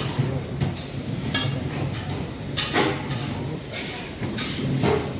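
Hands rolling and pressing a food roll in breadcrumbs in a stainless steel bowl, making several short gritty rustles and scrapes over a steady low hum.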